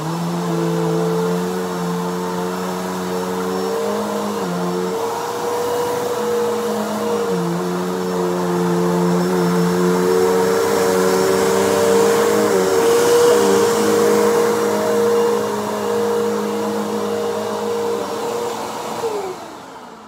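Bissell Power Force bagged upright vacuum cleaner running while it is pushed over shredded paper on carpet. Its motor hum steps up and down in pitch a few times as it is moved. Near the end it is switched off and winds down.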